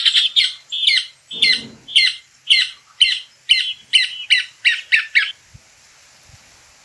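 Caatinga cacholote (casaca-de-couro) singing: a loud series of about fourteen harsh, scratchy notes that come gradually faster and stop about five seconds in.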